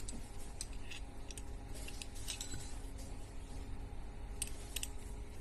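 A few light, sharp metallic clicks and taps from a hex key and an aluminium disassembly block being handled, over a steady low hum.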